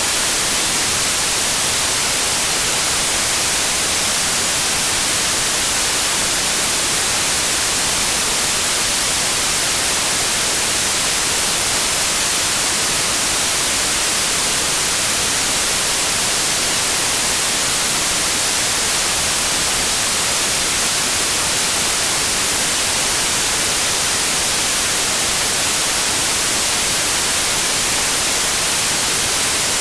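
Steady synthetic white noise: an even, unchanging hiss across all pitches, strongest in the highs, with no pattern or events.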